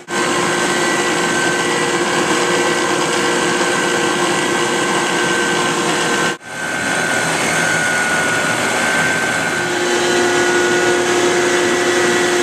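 Hacker block leveler, converted to run on electric motors driving belts and pulleys, running steadily: an even mechanical whir with a few held tones. The sound drops out briefly about six seconds in, and a low hum grows stronger near ten seconds.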